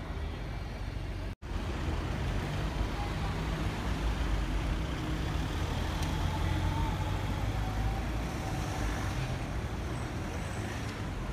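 Street traffic: low engine and tyre rumble of a city bus moving off and a car driving past. The sound cuts out completely for an instant about a second and a half in.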